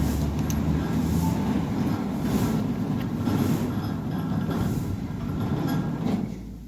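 Centurion D5 Evo gate motor driving a steel sliding gate open, a steady rumble of the gate rolling along its rail with a hiss swelling about once a second, stopping shortly before the end. It runs slowly on the opening cycle because the motor drive on the controller card is damaged.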